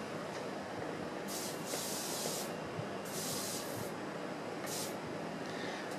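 Aerosol can of silicone spray sprayed in three short bursts of hiss, the first the longest and the last a brief puff near the end.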